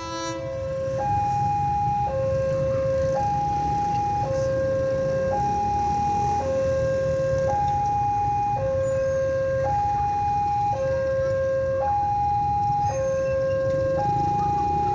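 Railway level-crossing warning alarm sounding its electronic two-tone signal, switching between a lower and a higher tone about once a second, the warning of an approaching train. A steady low rumble lies beneath it.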